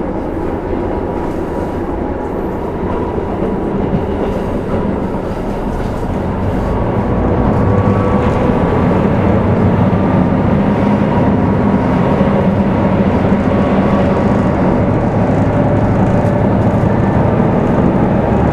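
KiHa 75 diesel railcar running, heard from on board: engine drone and wheels on the rails, growing louder about seven seconds in and then holding steady.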